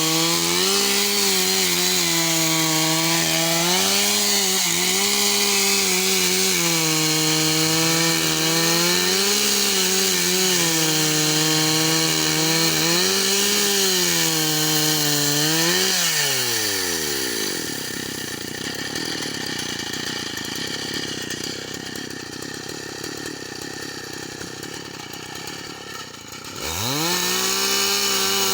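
Two-stroke chainsaw running at high speed, its pitch dipping and recovering every couple of seconds as it bogs under load in wood. Just past halfway the engine slows right down, a quieter rushing noise carries on for about ten seconds, and near the end the saw revs quickly back up to full speed.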